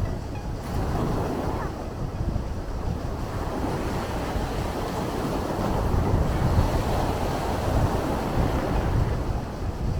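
Sea waves washing ashore, a continuous rushing surf with a deep low rumble, swelling a little past the middle. Wind buffets the microphone.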